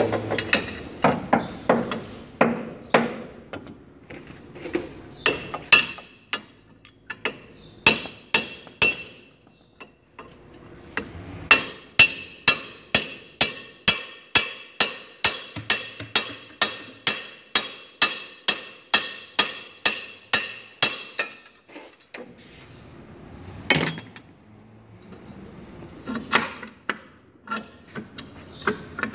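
Hammer striking steel in sharp, ringing blows. A steady run of about two a second lasts some ten seconds in the middle, with scattered blows before and after. This is the work of knocking a Suzuki APV's rear drive axle loose to change its bearing.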